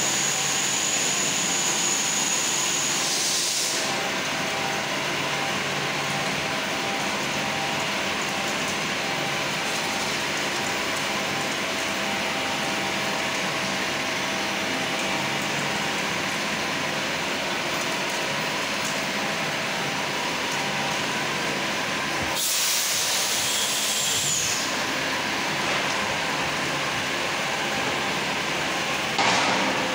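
CNC railway wheelset lathe running: a steady machine hum with several held tones over a hiss. Louder hissing swells a few seconds in and again about two-thirds through, and there is a short knock near the end.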